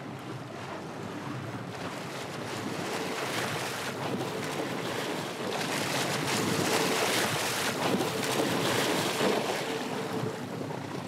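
Sea water splashing and churning against a fishing boat's hull as a hooked sailfish thrashes at the surface, with wind on the microphone and a faint steady engine hum underneath. The splashing grows louder about halfway through.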